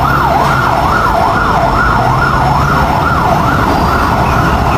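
Fire engine siren wailing rapidly up and down, about two sweeps a second, as an aerial ladder fire truck drives off.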